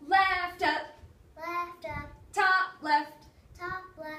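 A woman and a young girl chanting a rhythmic, sing-song sequence of Rubik's Cube turn calls ("left up, top left, left down…").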